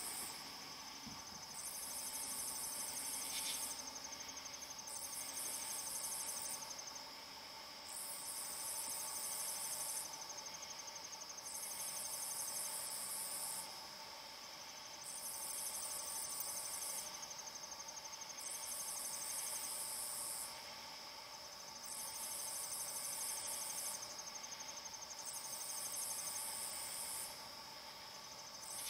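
Night insects chirping: a high, rapidly pulsing trill that comes in bursts of about two seconds, roughly every three seconds, over a steady lower insect drone.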